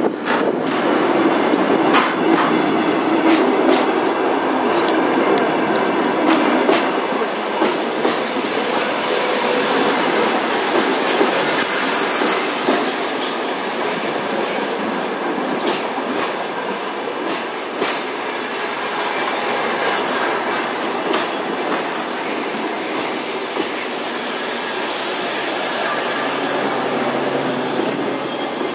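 Passenger train coaches rolling slowly past at close range as the train comes into the station, wheels knocking over rail joints. Thin high-pitched wheel and brake squeals come and go as it slows.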